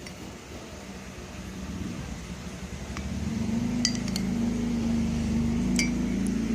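A steady mechanical hum builds and cuts off suddenly near the end, with a few light clinks of glass or utensils.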